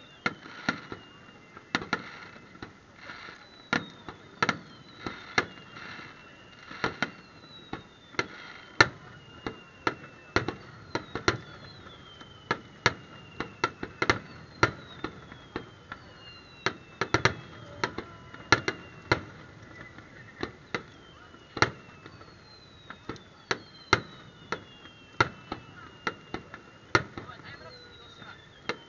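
Aerial fireworks display: a rapid, irregular series of sharp bangs from bursting shells, several a second at times. Repeated whistles falling in pitch run among the bangs.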